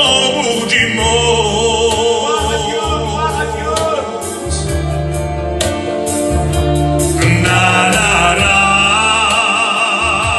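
A man singing a Christian hymn into a microphone over amplified music with a bass line that changes note every second or so. His voice wavers with vibrato on long held notes near the end.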